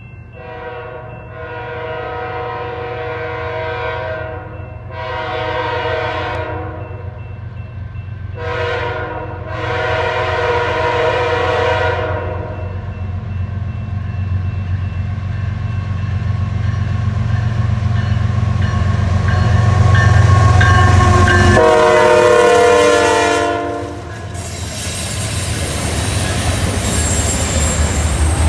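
Diesel freight locomotive air horn blowing four chords as the train approaches, long, long, short, long, the pattern sounded for a grade crossing, over a low engine rumble that grows as the locomotives near. The horn sounds once more as the lead units pass close by about 22 seconds in, then freight cars roll past with steady rail clatter and wheel noise.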